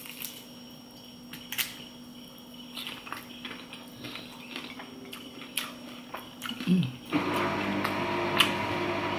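Quiet chewing and small clicks of someone eating crunchy roasted lamb ribs. About seven seconds in, a dishwasher that is meant to be silent suddenly starts up: a steady, louder hum with the watery rush of its pump.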